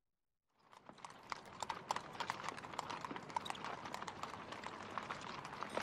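Hooves of several horses clip-clopping at a walk, fading in about half a second in and growing louder.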